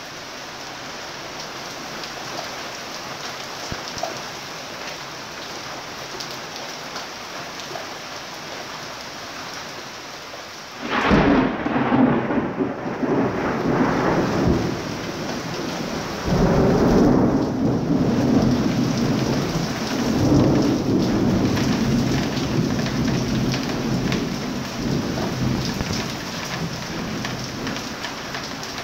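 Steady rain falling, then about eleven seconds in a close lightning strike: a sudden loud thunderclap followed by long rumbling thunder that surges again about five seconds later and slowly fades, with the rain going on throughout.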